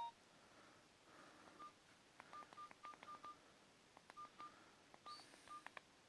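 Nokia 215 keypad tones: about a dozen short, faint beeps, all on one pitch, each with a light click, in quick runs of several key presses.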